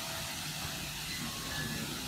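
Strong wind buffeting the camera's built-in microphone: a steady low rumble under an even hiss, with the audio crackling.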